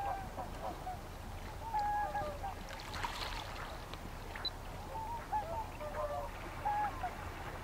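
A flock of waterbirds calling: many short, rising and falling calls overlapping one another, over a steady low rumble.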